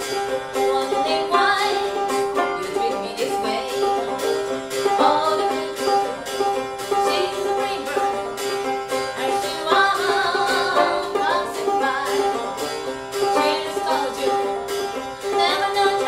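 Open-back banjo picking an old-time tune over a steady sustained drone note, with a woman's singing voice rising over it at times.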